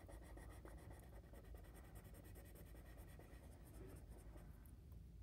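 Faint strokes of a felt-tip marker colouring in on paper.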